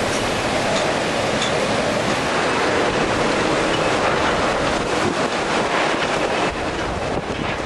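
Hurricane-force wind blowing hard: a steady, loud rushing roar, with gusts buffeting the microphone.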